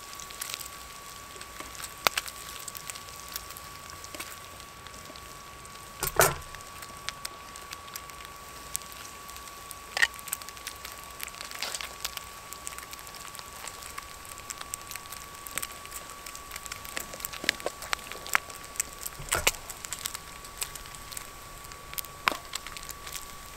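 Bacon sizzling and crackling in a titanium fry pan over a wood-burning Biolite CampStove 2, with the stove's fan giving a steady high hum under it. A few sharp knocks stand out, the loudest about six seconds in.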